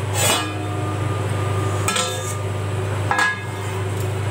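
Stainless steel dishes clinking three times, each with a short metallic ring, as a steel plate and mixing bowl are knocked together while dough balls are shaped.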